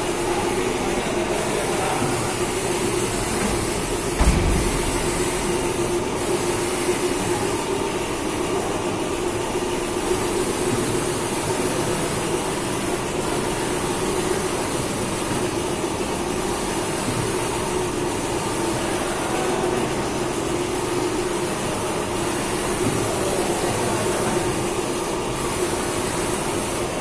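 CNC vertical milling machine running: a steady mechanical hum with a hiss over it, and one low thump about four seconds in.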